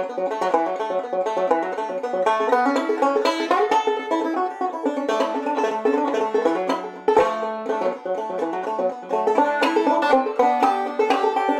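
Five-string banjo played clawhammer style: a fast, steady run of plucked and brushed notes over a ringing drone, an old-time fiddle tune.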